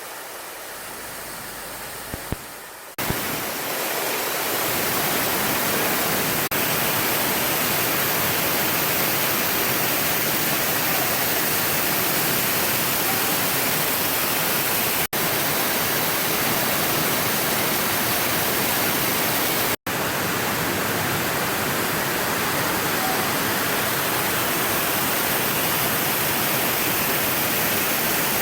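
Waterfall rushing: a steady, even hiss of falling water that gets louder about three seconds in, broken by two brief dropouts midway.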